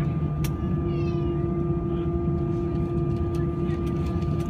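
Steady drone of the Airbus A320's jet engines heard inside the cabin, an even rushing noise with a constant hum tone. About a second in, a short, high, wavering cry rises over it, and there is a sharp click just before.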